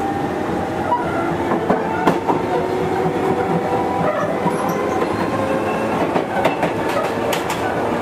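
Sotetsu old 7000 series electric train running, heard from inside the motor car: wheels clacking over rail joints, with several sharp clicks about six to seven seconds in, over a steady hum of the Hitachi GTO-VVVF inverter and traction motors.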